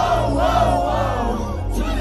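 Loud live concert music through a festival sound system: amplified singing over a heavy, steady bass, with the crowd singing along.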